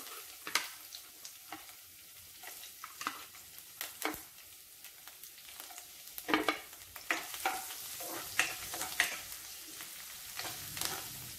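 Sliced ginger and garlic with whole spices sizzling in a little hot oil in a nonstick pan, a steady hiss with scattered crackles and pops that grow busier about halfway through. Near the end a spatula stirs them around the pan.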